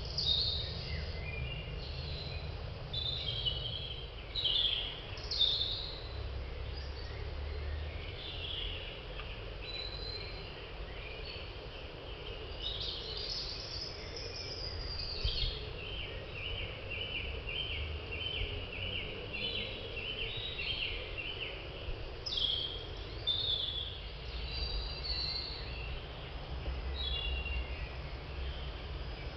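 Woodland birds singing: short whistled phrases on and off, with a run of quickly repeated chirps in the middle, over a low steady rumble.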